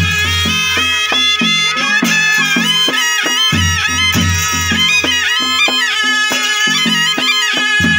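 Nepali naumati baja (panche baja) folk band playing a morning raga: sanai (shehnai) carry a reedy melody full of bending, ornamented turns over a steady beat of dholaki drum strokes.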